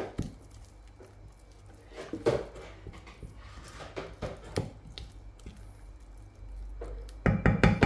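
Wooden spoon stirring thick, sticky sourdough starter in a glass dish, with scattered clicks of the spoon against the glass. Background music with a steady beat comes in near the end and is the loudest sound.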